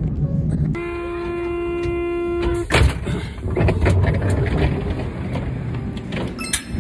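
Inside a train carriage: a steady electronic tone held for about two seconds, then a sharp knock, followed by the carriage's running rumble with light clicks and clatter.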